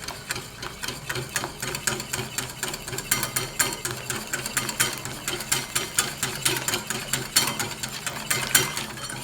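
Whisk beating hot lemon juice into egg yolks in a bowl, the wires clicking quickly and evenly against the bowl over a steady hum.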